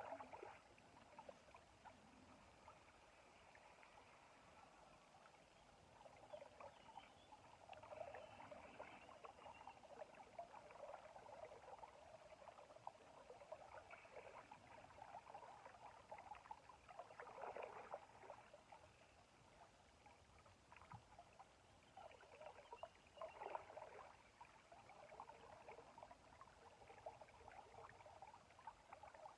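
Faint river water trickling and lapping, a low crackly rush that swells a little now and then.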